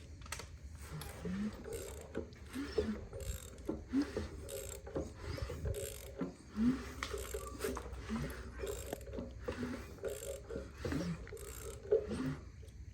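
Ratchet clicking and metal parts ticking and squeaking as the crankshaft of a freshly built engine is turned over by hand, checking whether a valve is hitting a piston.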